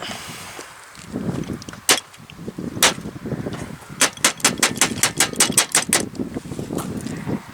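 Hand work on a tar-gummed lawn tractor carburetor: a short hiss, two single sharp clicks, then a quick run of about a dozen clicks, roughly six a second, over low rustling handling noise.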